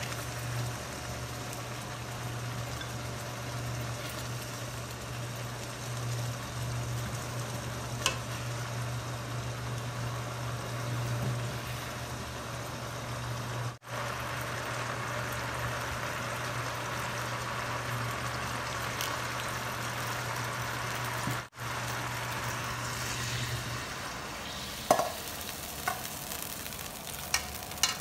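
Chicken adobo sauce bubbling and sizzling in a frying pan, over a steady low hum that stops near the end. Several sharp clinks near the end as the pan is tipped against a stainless steel bowl to pour off the sauce.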